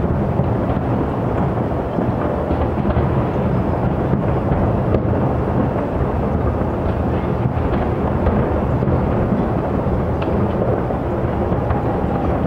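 Aerial fireworks shells bursting in rapid succession, heard from far off so that the bursts merge into a continuous low rolling rumble like thunder.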